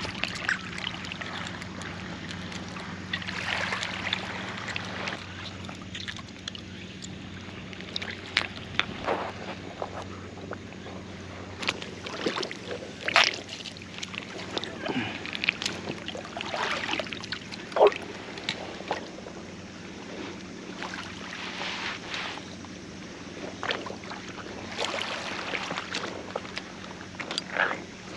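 Water washing and lapping over a steady low hum, with scattered sharp knocks and clicks; the loudest knocks come about 13 and 18 seconds in.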